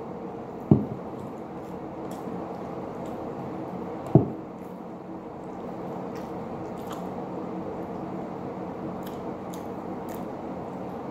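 Wet mouth sounds of someone eating fish and rice by hand: faint chewing and lip-smacking ticks over a steady low hum, with two dull thumps, one about a second in and one about four seconds in.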